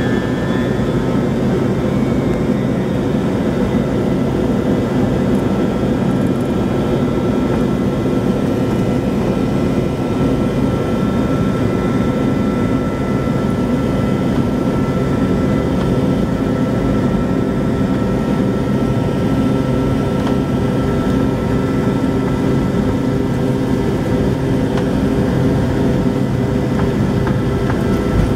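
McDonnell Douglas DC-9-51's rear-mounted Pratt & Whitney JT8D turbofans at takeoff thrust during the takeoff roll, heard from inside the cabin. A steady loud roar carries a whine that climbs in pitch in the first second, then holds steady, over the rumble of the wheels on the runway.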